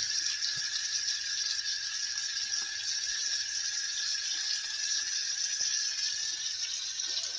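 Venison backstrap sizzling in a hot pan over a fire: a steady, even hiss.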